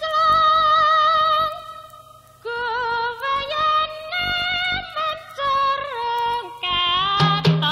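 Tayub music from East Java: a female sinden holds one long wavering note, breaks off, then sings a phrase of sliding notes. Near the end, drum and gamelan strikes come in under the voice.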